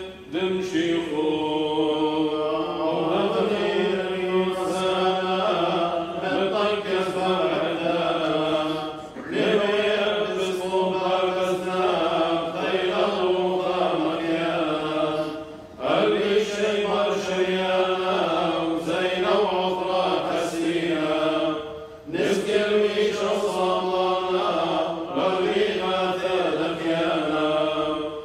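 Clergy chanting a Syriac liturgical prayer of the Assyrian Church of the East, sung in long phrases with short breaks between them.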